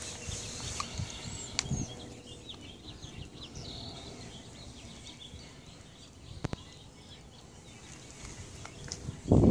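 Faint outdoor background with small birds chirping, a couple of sharp clicks and a louder low bump near the end.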